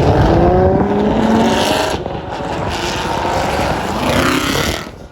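Performance car engine revving hard under acceleration, its pitch climbing over the first two seconds, easing, then rising again before cutting off suddenly near the end.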